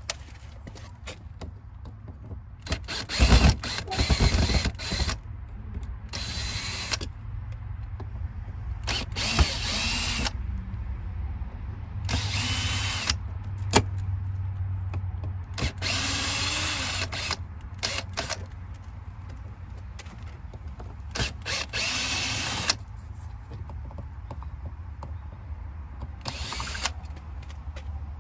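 Cordless drill/driver run in about seven short bursts of one to three seconds each, some with a whine rising as the motor spins up.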